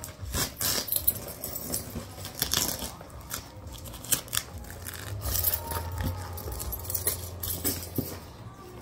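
Cardboard and clear plastic packing being handled and pulled out of a box: irregular rustling and crinkling with scattered sharp crackles.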